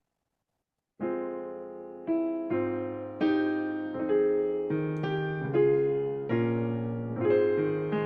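About a second of silence, then piano music begins: chords and notes struck roughly every half second to a second, each left to ring and fade.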